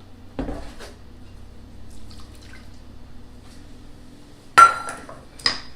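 Kitchen dishes knocking and clinking while milk goes into a mixing bowl: a dull knock about half a second in, then a sharp, ringing clink of a dish struck near the end and a lighter clink just after.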